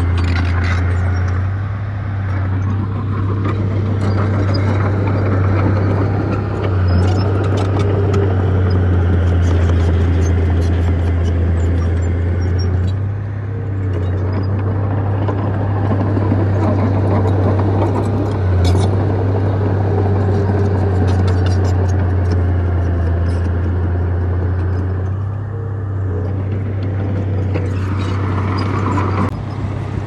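Komatsu crawler bulldozer's diesel engine running steadily under load as it pushes dirt and rock, with scattered clanks from its tracks and the rocks.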